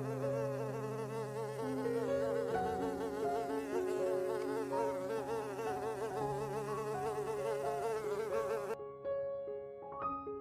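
A bumblebee buzzing as it flies among flowers, its drone wavering up and down in pitch, over soft sustained background music. The buzz cuts off near the end, leaving only the music.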